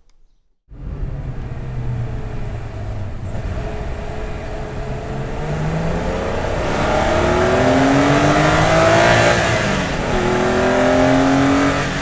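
BMW E46 M3's S54 straight-six engine with the stock airbox intake, pulling under acceleration: its note climbs steadily in pitch, drops briefly about ten seconds in, then climbs again. It cuts in suddenly just under a second in, after a near-silent moment.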